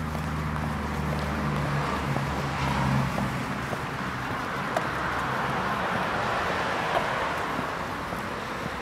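Motor vehicle noise, with a low engine hum in the first few seconds and a broad rushing sound that swells through the middle and fades near the end, like traffic passing.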